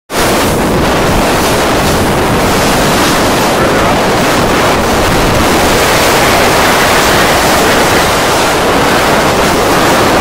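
Loud, steady wind buffeting on the microphone over rushing sea water, as heard from a boat moving across open water.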